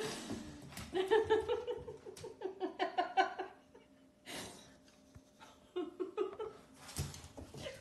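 A person giggling softly in quick short bursts, in two spells, with a breathy exhale between them.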